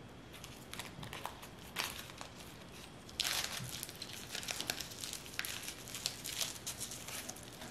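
Sheets of dried seaweed (gim) crackling and crinkling under the fingers as kimbap is rolled, the brittle sheet cracking open. Scattered crackles at first, growing dense from about three seconds in.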